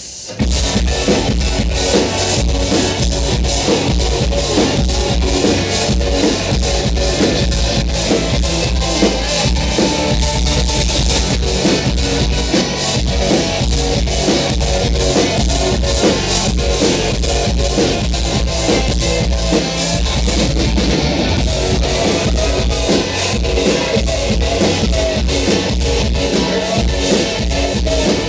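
Rock band playing live in an instrumental passage: electric guitar, drum kit and a heavy low end. After a very brief break right at the start, the band plays on at full level.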